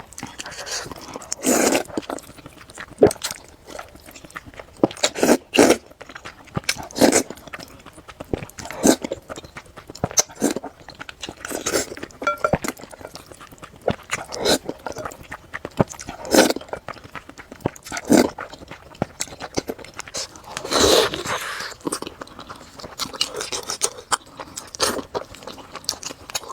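Close-miked eating of noodles: loud wet slurps and gulps every second or two, with chewing in between; the longest slurp comes about three quarters of the way through.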